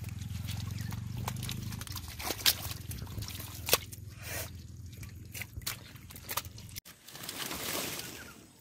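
Wet mud and shallow water squelching and splashing as a large catfish is grabbed and handled by hand, with sharp slaps and clicks, two of them loud, over a steady low hum that cuts off about two-thirds of the way through. Near the end, water hyacinth stems and leaves rustle as they are pulled aside.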